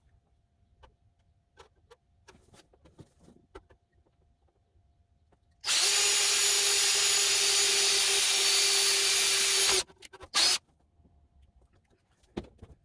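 Power drill running steadily for about four seconds, then briefly once more, drilling a mounting hole into the metal computer tower case. Light handling clicks come before it.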